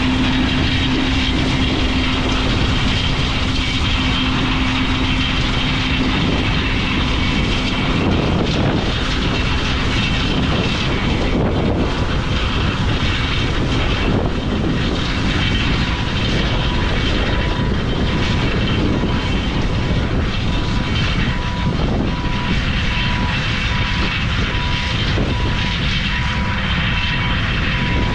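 Large harvest machinery running steadily at working speed: a loud, even engine and fan noise with high whining tones. A low steady hum drops out about a third of the way in.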